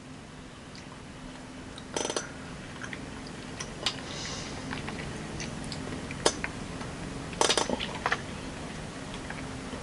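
Sharp clicks and short handling noises of a small plastic squeeze-bottle candy being opened and handled, over a steady low hum from a lawnmower running some way off.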